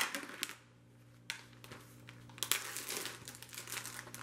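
Plastic film on a tray of ground chicken crinkling and tearing in scattered rustles as the package is opened, after a sharp tap at the very start.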